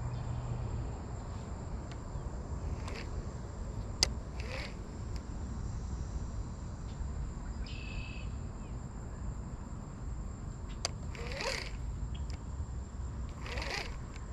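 Outdoor natural ambience: a steady high insect drone over a low rumble, with a few short animal calls and a brief chirp about eight seconds in. One sharp click about four seconds in.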